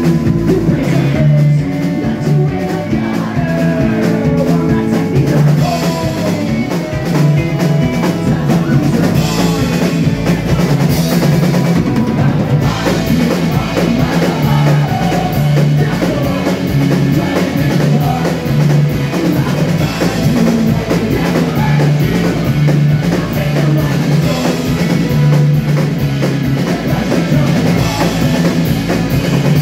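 Live rock band playing loud and steady: drum kit beat, electric and acoustic guitars and keyboard, with a lead singer and backing vocals.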